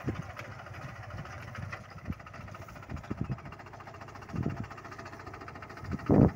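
Captain 250 mini tractor's engine running steadily as it pulls a cultivator through groundnut rows, with a few short knocks and a louder thump near the end.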